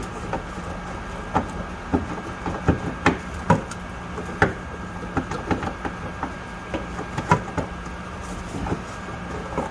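Irregular sharp metal knocks and clanks of tools and parts as a car's rear shock absorber is worked loose, over a steady low hum.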